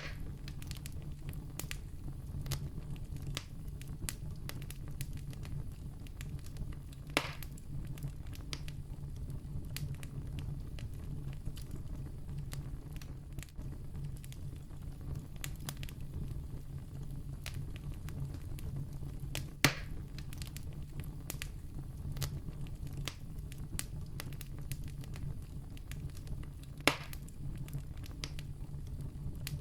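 Wood campfire burning: a steady low rumble with constant small crackles, and three much louder sharp pops spread through.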